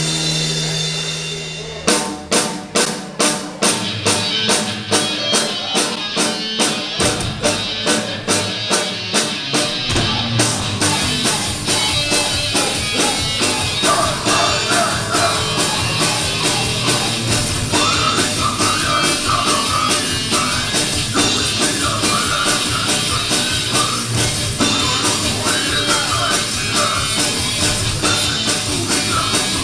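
Rock band playing: drum hits start a steady beat about two seconds in, about three a second. The full band comes in at about ten seconds, and singing starts about four seconds later.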